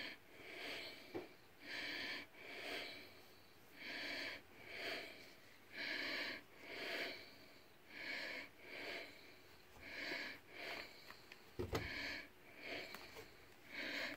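A person's nasal breathing close to the microphone: a breathy in-and-out hiss repeating about every two seconds. A few soft knocks come late on.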